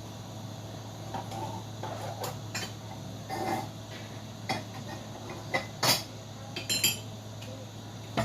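Cup and cutlery clinking and knocking in a handful of separate sharp strikes, the loudest near the end, as lemon slices are put into a cup, over a steady low hum.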